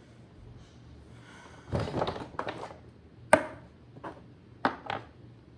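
Small makeup products handled on a desk, with a scatter of light taps, knocks and clicks. They come in a cluster about two seconds in, with the sharpest click a little after three seconds and a few softer taps after it.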